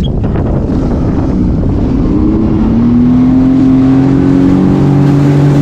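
Jet ski engine speeding up as the craft pulls away. About two seconds in its pitch rises, then holds steady at cruising speed over the rush of wind and water.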